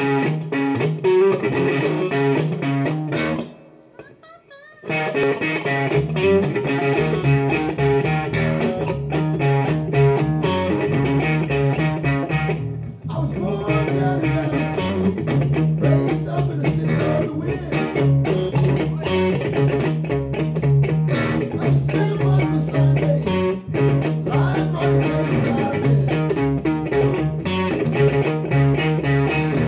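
Electric guitar and electric bass playing a funky blues-rock tune live. The playing stops for about a second around four seconds in, then resumes.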